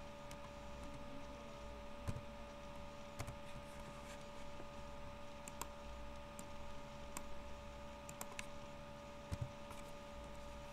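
Scattered computer mouse clicks and keyboard key presses, a few at a time, over a steady background hum.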